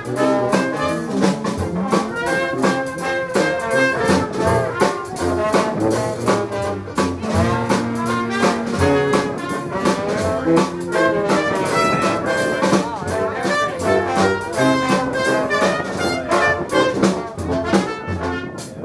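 Live Dixieland jazz band playing, trumpet and trombone lines over a steady beat of drums; the tune ends just before the close.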